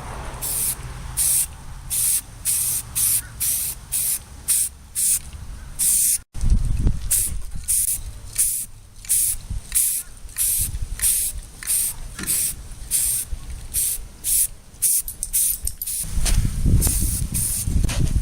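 Repeated short bursts of spraying hiss, a little under two a second, over a low rumble that swells near the end.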